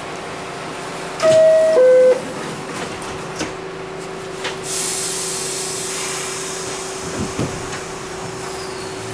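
R62A subway car's two-note door-closing chime, a higher note then a lower one about a second in, followed by a few knocks as the doors shut. About four and a half seconds in a high hiss of air starts and slowly fades as the train readies to leave, over a steady hum from the car.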